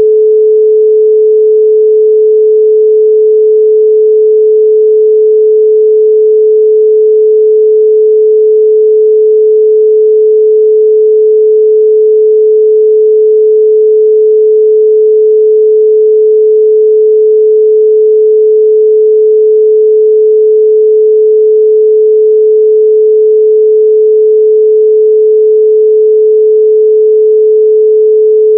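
Continuous 432 Hz pure sine tone, steady and unchanging in pitch and loudness.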